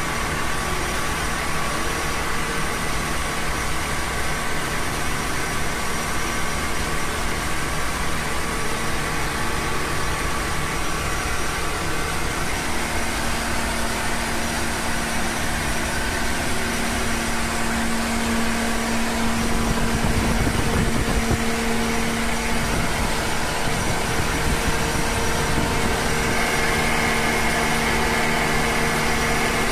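High-pressure breathing air compressor running steadily under load as it fills an EEBD cylinder towards 200 bar: a constant mechanical drone with a steady hum.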